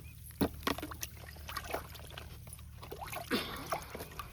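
Faint trickling and small splashes of water, with scattered short clicks and taps.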